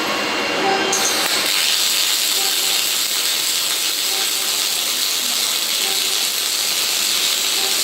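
Semi-automatic gas-shielded arc welding: the arc strikes about a second in, then a steady hissing crackle runs on. The welder's fume extraction is switched off.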